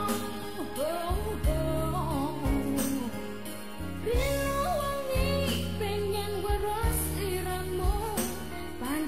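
Background song: a singing voice over a pulsing bass line.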